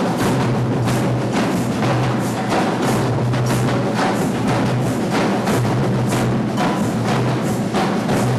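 Brazilian percussion group playing a steady drum rhythm: deep bass drums under sharp strokes that repeat about four times a second, with no letting up.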